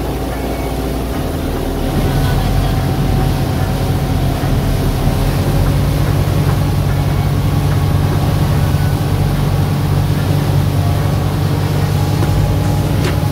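Motorboat engine running steadily at a constant pitch, growing slightly louder about two seconds in.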